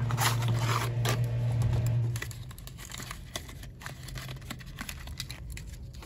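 Packaging of a small diecast toy being opened by hand: irregular crinkling, tearing and small clicks. A steady low hum runs under the first two seconds, then stops.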